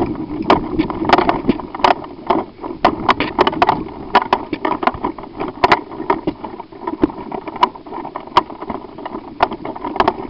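Footsteps and clattering gear of players moving on foot: irregular sharp clicks and knocks, two or three a second, over a steady rustling noise.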